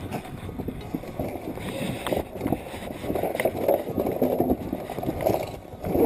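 Muffled rustling and scraping of clothing rubbing against the camera's microphone, with scattered light knocks and clicks from handling.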